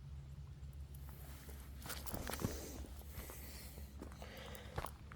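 Footsteps and rustling on a forest trail, with sharper snaps about two and a half seconds in and near the end.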